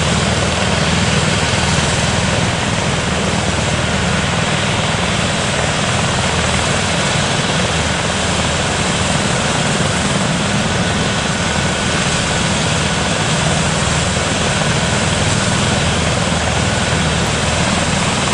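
Airbus H145 rescue helicopter's twin turboshaft engines and rotor running steadily, with no change in pitch or level.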